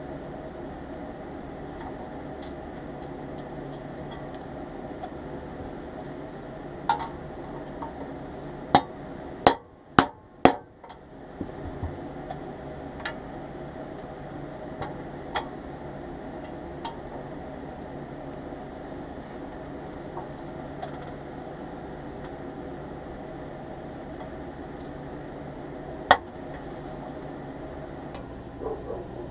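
Small metal clinks and taps as nuts, a nut driver and pressed-steel toy loader parts are handled and set down on a workbench, over a steady background hum. About ten seconds in come three loud knocks in quick succession, and a single sharp click comes near the end.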